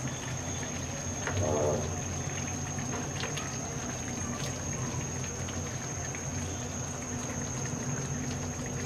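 Thick milk-and-onion gravy simmering in a kadai, bubbling with small scattered pops and plops. A steady hum and a high whine run underneath, and a short pitched sound rises about a second and a half in.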